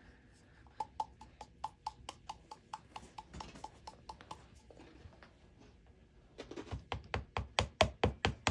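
A plastic paint bottle tapped over and over to get paint that is slow to come out: light knocks about three a second, turning to louder, heavier knocks about six seconds in.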